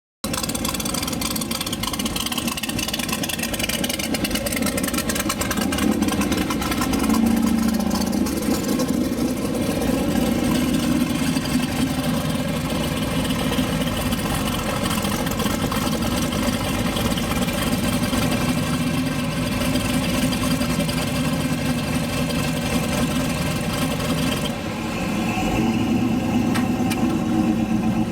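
Rat rod hot rod's engine running through its exhaust, mostly at a steady idle, rising briefly about seven seconds in and shifting again near the end.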